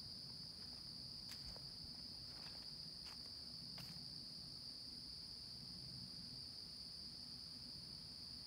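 Steady, faint, high-pitched insect chorus trilling without a break in late-summer woodland, with a few faint clicks about one, three and four seconds in.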